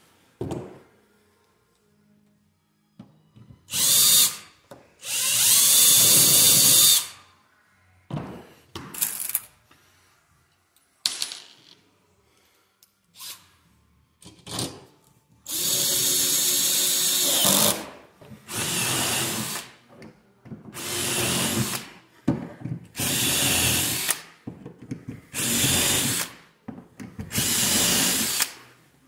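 Cordless drill run in about ten short bursts, drilling holes through the clear plastic skylight flange and its metal frame, with brief clicks and pauses between runs.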